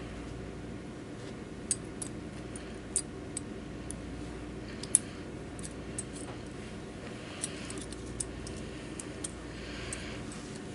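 Light metallic clicks and taps from a stainless-steel dental aspirating syringe as it is handled and a glass anesthetic cartridge is loaded into its barrel. The clicks are scattered and irregular, about ten in all, the sharpest about five seconds in, over a steady low hum.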